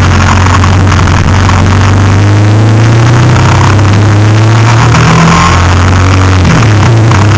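Engine of the vehicle carrying the camera, running steadily under load as it climbs a mountain road, over a loud rushing noise. The engine note breaks and shifts about six and a half seconds in.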